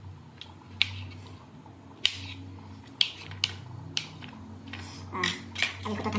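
A kitchen knife clicking and scraping against a ceramic plate while cutting soft boiled tomatoes: several separate light clicks, roughly a second apart, over a steady low hum.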